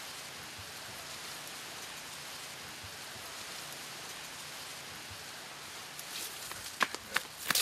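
A steady, even hiss. About six seconds in come sharp rustles and snaps of tall grass and brush as someone pushes through it.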